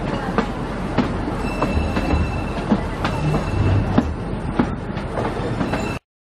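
Narrow-gauge train coaches running through a curve, heard from an open coach window: a steady rumble with irregular knocks from the wheels, and a thin high wheel squeal that comes and goes. The sound cuts off suddenly near the end.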